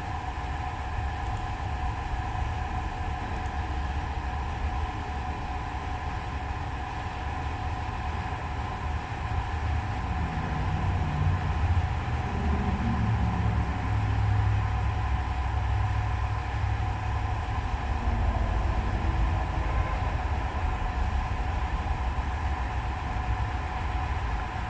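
Steady low mechanical rumble with a constant whine over it, getting somewhat louder about ten seconds in.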